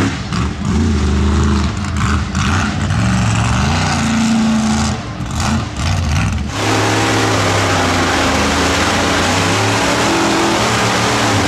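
Big engines of lifted mega trucks on oversized tyres, revving up and down as a truck drives across a dirt field. About six and a half seconds in, the sound switches abruptly to a steady, loud drone of truck engines held at high revs under a heavy hiss.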